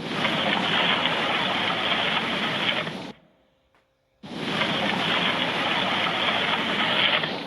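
Two blasts of loud, even rushing noise, each about three seconds long, that cut in and out abruptly with a second of silence between them: an earthquake sound effect.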